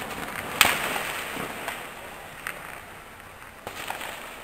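Gunshots ringing out in the night. One loud sharp crack with a trailing echo comes about half a second in, followed by a few fainter single cracks later on.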